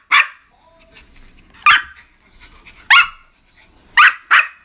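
Small white dog barking in short, sharp, high barks, five times at uneven intervals with the last two close together, begging for a piece of chicken breast held above it.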